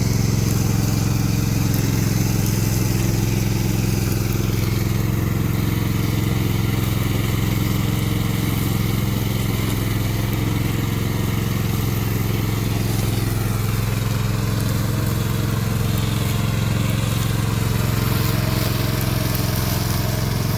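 Remote control lawn mower's engine running steadily at a constant speed.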